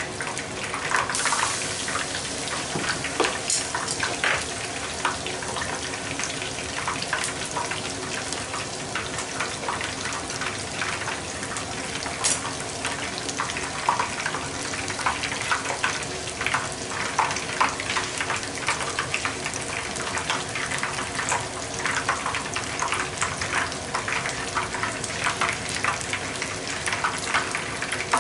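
Shrimp tempura deep-frying in a shallow pan of oil: a steady sizzle with dense crackling, growing louder about a second in as battered shrimp go into the oil.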